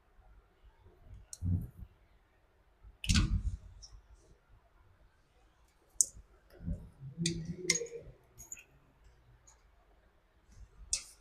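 Scattered clicks and knocks of hand tools and a thick power cable being handled while the cable is measured and stripped for its lug, a second or more apart, the loudest knock about three seconds in.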